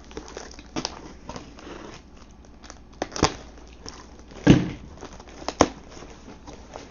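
Folding knife slitting the packing tape along a cardboard box's seam, then hands pulling at the tape and flaps: scraping, crinkling tape and rustling cardboard, with a few sharp clicks.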